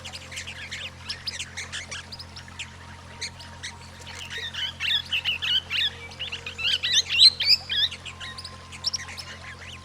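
Swift parrots calling: rapid, high-pitched chattering chirps, busiest and loudest in the middle, over a steady low drone.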